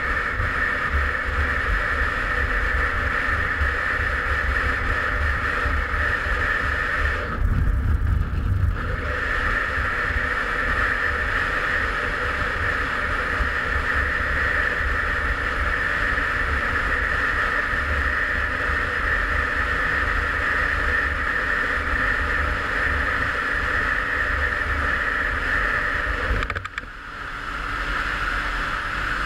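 Derbi Senda Xtreme 50's two-stroke engine running at steady high revs under way, with heavy wind buffeting on the microphone. The engine note drops away for over a second about seven seconds in, and again briefly near the end, as the throttle is eased off.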